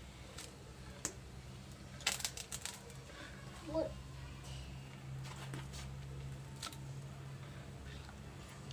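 Metal spatula clinking and scraping against an iron kadhai while grated carrot is stirred into boiling milk: a sharp click about a second in, then a quick cluster of clinks and scrapes around two seconds in, with a few more later. A steady low hum runs underneath.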